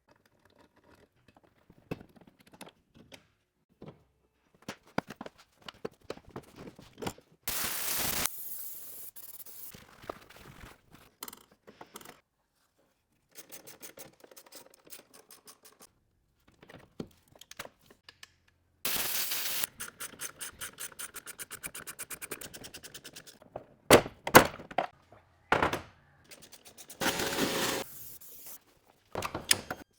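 Hands and tools at work on a car's windscreen wiper linkage: scattered knocks, clunks and scrapes of metal parts. There are three hissing bursts, one about a quarter of the way in, one past halfway and one near the end, and a quick even run of ticks after the middle. The loudest sounds are a couple of sharp knocks a little past three quarters of the way through.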